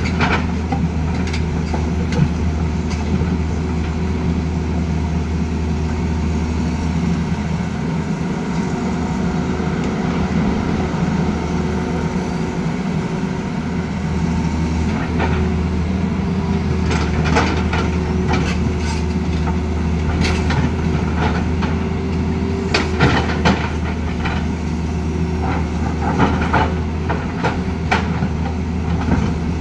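Tata Hitachi Zaxis 220 excavator's diesel engine running steadily while it shifts stone. Several clatters and knocks of the bucket against rocks can be heard, mostly in the second half.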